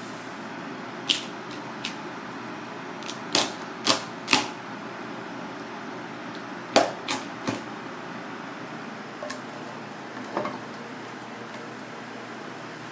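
Kitchen knife chopping through pieces of crab onto a cutting board: about a dozen sharp, irregular knocks, the loudest about seven seconds in, over a steady background hiss.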